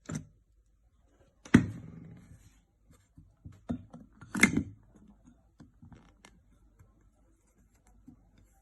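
A few separate knocks and clunks of hard objects being handled or set down, the loudest about a second and a half in with a short rattle after it and another strong one about halfway through.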